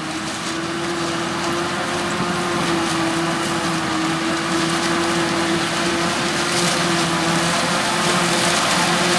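Heavy harvesting machinery running steadily with a constant whining tone over engine noise, slowly getting louder.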